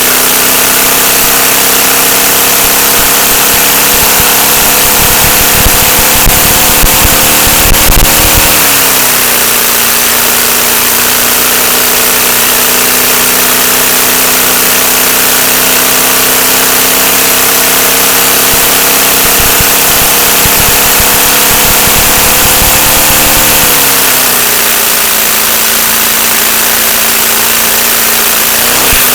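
LEGO four-cylinder boxer engine, driven by vacuum-cleaner suction, running fast and continuously with a strong rushing air hiss. Its pitch drops slightly about 8 seconds in and again near 24 seconds, creeping back up in between.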